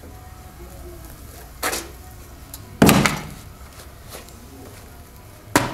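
Three irregular sharp knocks over a low steady rumble, the loudest about three seconds in.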